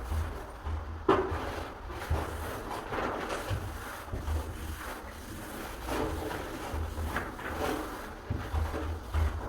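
Irregular knocks and rubbing from hands-on work on a wooden door, with a sharper knock about a second in and low rumbling bursts underneath.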